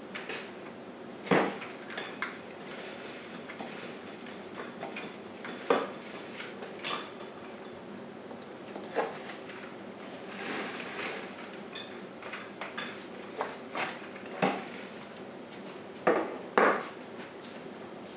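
Metal rod knocking and clinking against packed moulding sand in a wooden casting flask: a string of sharp knocks a few seconds apart, with a short scraping hiss near the middle and two knocks in quick succession near the end.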